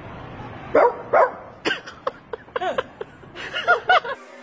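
Small dog yapping: a string of short, high barks, two about a second in, more through the middle, and a quick run of three near the end.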